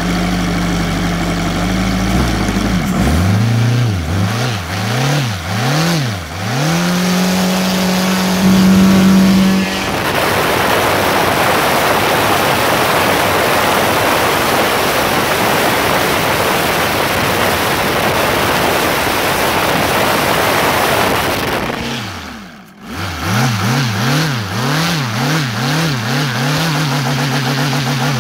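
OS Sirius 7 FR7-420 seven-cylinder four-stroke glow radial engine on CDI ignition, run up on a test stand. Its revs first hold steady, then waver up and down. About ten seconds in, it goes to full throttle, near its 5800 rpm top end, and the sound becomes a loud, even rush. About twenty-two seconds in, the sound briefly dips, and the engine returns at lower, wavering revs.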